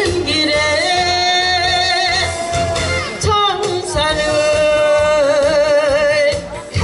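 A woman singing two long held notes with vibrato into a microphone over backing music. There is a short break between the notes about three seconds in.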